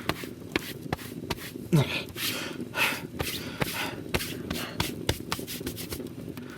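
Footsteps of a person walking at an uneven pace, a series of short scuffs and knocks, with breathy sounds between them.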